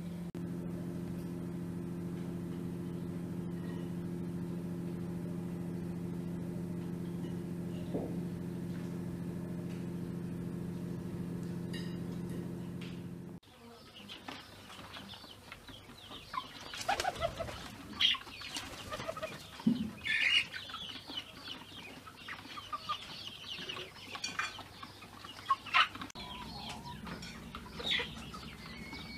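A steady machine hum for about the first half, cut off abruptly. Then chickens clucking, with scattered bird calls and wing flaps.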